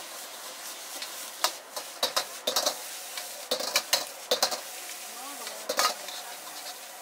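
Egg fried rice sizzling in a wok over a gas burner, with a steel ladle scraping and clanking against the wok. The clanks come irregularly, in a cluster through the middle of the sound.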